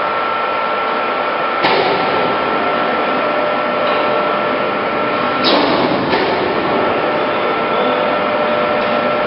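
Heavy-duty metal lathe running: a steady machine noise with a high, even whine, broken by a few sudden sharp hits, one about two seconds in and two just past the middle.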